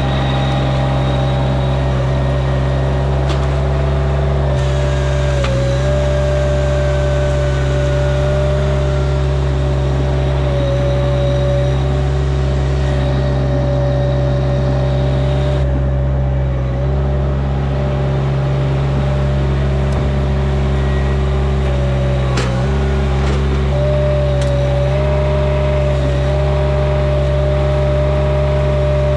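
An engine running steadily at high speed, with a brief dip in pitch every five or six seconds.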